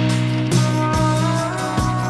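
Background music: a rock track with guitar and a steady drum beat.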